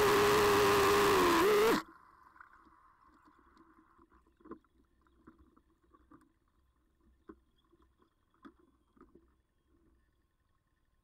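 Bass boat's outboard engine running at speed with wind rushing over the microphone, its pitch rising slightly just before it cuts off suddenly about two seconds in. After that only faint scattered taps and water sounds against the hull.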